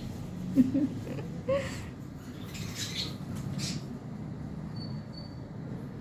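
A baby ringneck parakeet making a few short, soft squeaks and chirps, with several brief hissy bursts in between, over a steady low hum.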